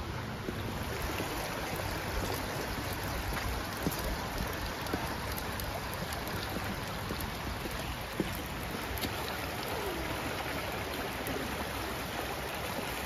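Shallow rocky stream running: a steady rush of flowing water.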